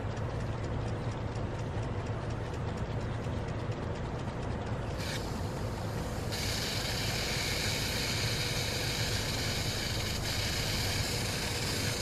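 Irrigation sprinkler ticking rapidly, then about five seconds in a strong hiss of water as the nozzle is pulled from the plugged sprinkler head and the open riser shoots a full jet. A steady low rumble runs underneath.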